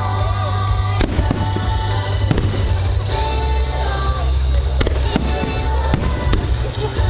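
Fireworks display: several sharp bangs of shells bursting over music played for the show, which has a heavy, steady bass.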